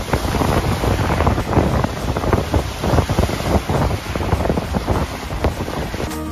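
Strong gusty wind buffeting the microphone over lake waves breaking and washing on a rocky shore.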